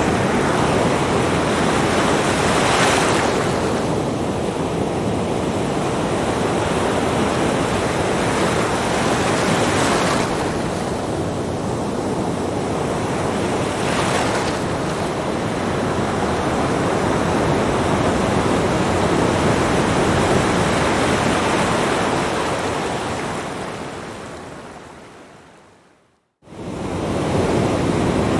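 Small ocean waves breaking on a sandy beach and washing up the shore: a steady rush of surf with louder surges as each wave breaks. Near the end the sound fades out to silence, then comes back suddenly.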